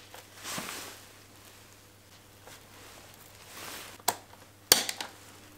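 A DID motorcycle drive chain being fitted around the rear sprocket by gloved hands: soft handling rustle, then a few sharp metallic clicks of the links about four seconds in and near the end.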